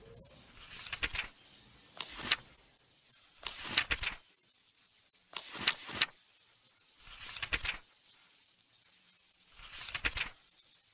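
Electric crackle sound effects: six short crackling zaps, each swelling up and then cutting off, spaced a second and a half to two and a half seconds apart.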